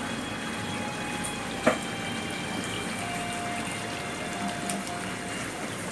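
Steady running water, like a hose or tap left on, with one sharp knock a little under two seconds in.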